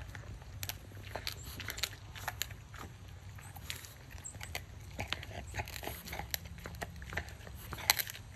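A bulldog chewing an air-dried, hairy cow ear, the cartilage crunching in an uneven run of sharp crunches, with one louder crunch near the end.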